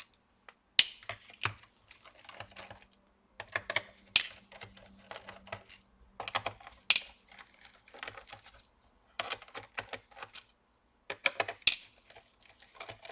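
Small screws being worked out of a laptop's plastic bottom cover with a precision screwdriver: irregular bursts of light clicks and ticks, with small metal screws set down or dropped on the work surface.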